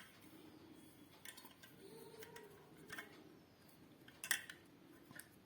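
A few faint clicks and taps from small pressure-cooker parts and packaging being handled, the loudest about four seconds in.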